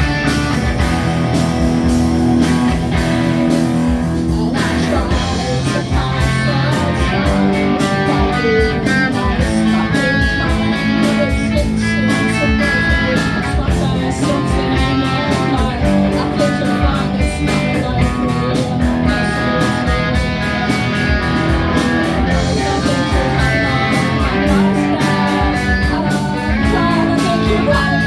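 Live rock band playing a song, with guitar to the fore and some singing.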